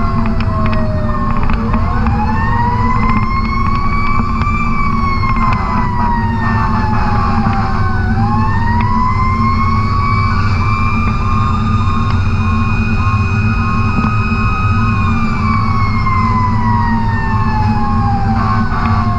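Fire truck siren wailing, heard from inside the cab of the 2003 Sutphen ladder truck. It winds up about two seconds in, falls away, winds up again, holds high for several seconds and then falls off near the end. The truck's Caterpillar C12 diesel engine rumbles steadily underneath.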